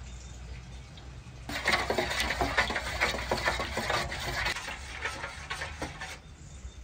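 Wooden spoon stirring thin batter briskly in a large metal bowl, a quick run of clicks and scrapes against the bowl. It starts about a second and a half in and stops about six seconds in.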